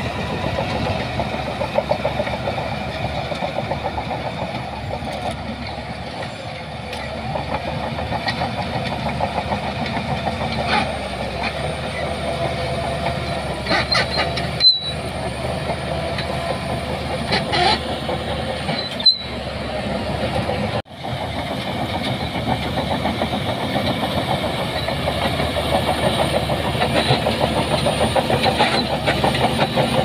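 Diesel engines of heavy earthmoving machinery, a bulldozer and a dump truck, running steadily with a continuous rattle. The sound drops out briefly three times around the middle.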